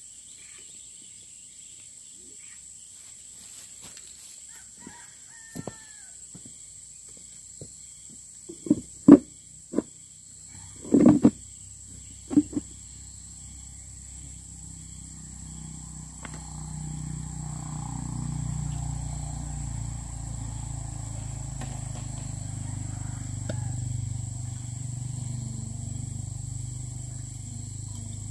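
A steady high-pitched trill of crickets runs throughout. A cluster of knocks and thumps comes around the middle as a man settles onto a plastic stool. A low steady rumble of unclear source then builds and holds.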